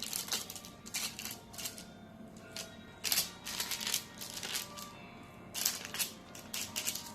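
A spoon pressing cookie dough balls flat on a baking-paper-lined tray, making irregular short scrapes, taps and paper crinkles. Soft background music runs underneath.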